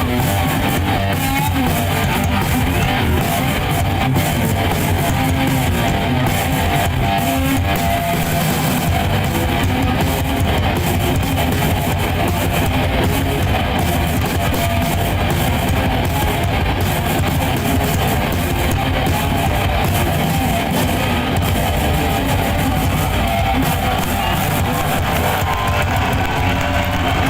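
A rock band playing loudly live, with electric guitar strumming.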